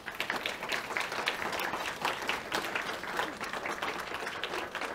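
Audience applauding with steady clapping that thins out near the end.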